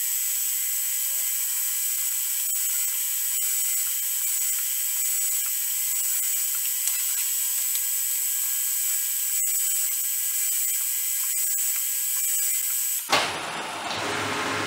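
Milling machine drilling a metal block: a steady high hiss and whine from the spindle and the cut, with scattered ticks of chips. Near the end the sound changes abruptly, with a thump, to a fuller, lower machine hum.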